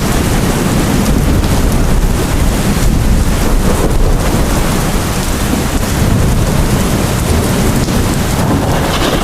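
Heavy rain falling steadily: a dense, even hiss with a strong low rumble underneath.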